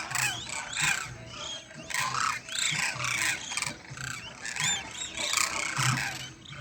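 A large flock of demoiselle cranes calling together: many short, overlapping rolling calls that rise and fall in pitch, forming a continuous chorus.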